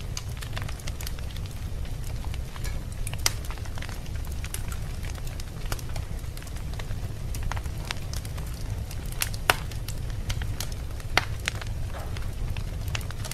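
Wood fire burning in a fireplace: a steady low rumble with irregular crackles throughout and a few louder pops.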